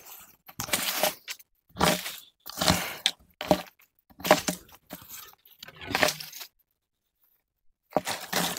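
Dry leaves and twigs crunching and scraping in short repeated strokes, about one a second, as a long wooden pole rakes the forest floor, with a pause of about a second near the end.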